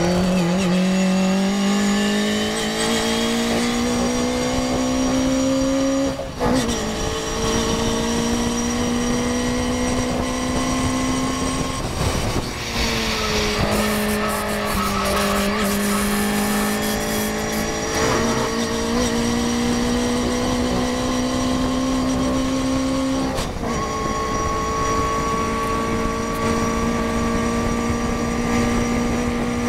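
Morgan race car's engine, heard from inside the open cockpit, pulling hard under full throttle. Its pitch climbs slowly and drops suddenly at each upshift, several times, with wind noise throughout.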